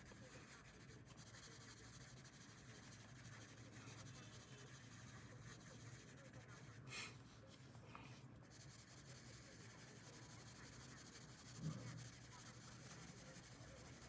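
Faint scratchy rubbing of a pink colored pencil shading on paper, with one brief louder noise about seven seconds in.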